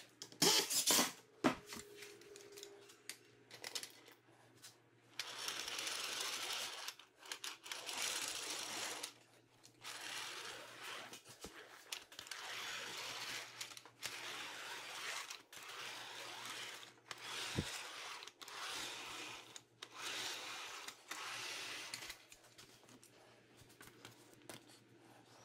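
A cordless drill drives a screw briefly near the start; then a hand hemming tool is pushed along the edge of a sheet-metal roofing panel again and again, a series of rough scraping passes, each a second or two long, as the hem is formed.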